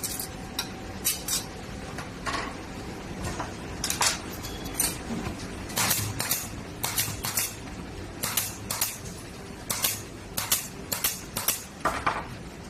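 Aluminum frame parts clacking and clinking as they are handled and fitted together, in irregular sharp knocks over a steady low hum.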